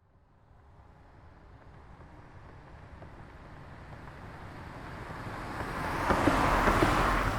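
A road vehicle passing by: it comes in faintly from a distance, grows steadily louder for about six seconds, and is loudest as it passes close near the end, just beginning to fade away.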